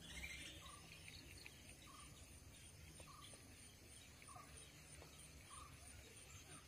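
Near silence at a pond: faint outdoor ambience with a faint short animal call repeating evenly, about once every 1.2 seconds.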